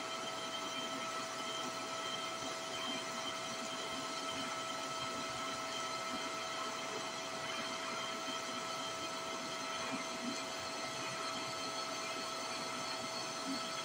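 DC TIG welding arc from an ArcCaptain TIG 200 burning steadily while laying plug welds: an even hiss with a steady high whine running through it.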